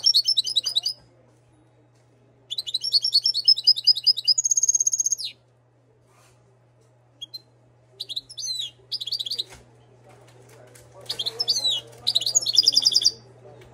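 Moroccan goldfinch (European goldfinch) singing in four bursts of rapid, high twittering and trills, with pauses of one to three seconds between them.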